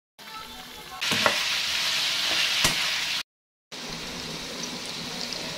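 Pork chunks sizzling as they fry in rendered fat in a pan, with two sharp clicks during the loudest stretch. The sound cuts out briefly about three seconds in, then the sizzle resumes a little quieter with small crackling pops.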